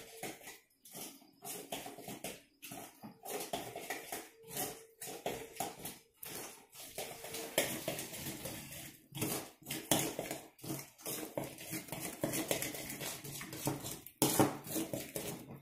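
A spoon stirring and scraping wet potato pancake batter in a glass bowl, with repeated irregular clinks against the glass.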